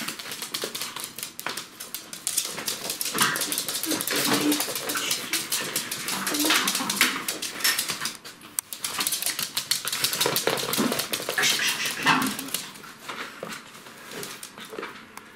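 Pomeranian puppies and an adult Pomeranian playing and tussling, with dense clicking and scuffling of claws on a laminate floor and short puppy yips and whines now and then.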